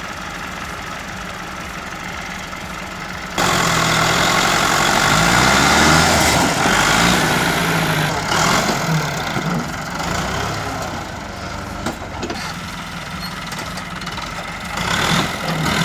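Vehicle engine running steadily; about three seconds in, a louder engine sound cuts in abruptly, its pitch rising and falling as it is revved and worked under load.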